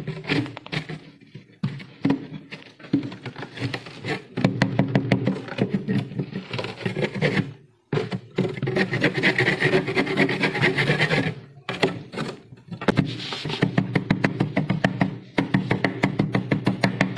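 Thick freezer frost being scraped and crunched by hand and with a flat scraper: dense, fast crackling scrapes in runs of a few seconds, broken by short pauses. Music with steady low notes plays underneath.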